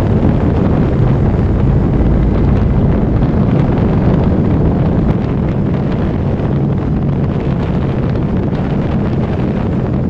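Suzuki Intruder Classic 400's V-twin engine running steadily while riding, with wind rushing over the camera microphone. The sound drops a little in level about halfway through.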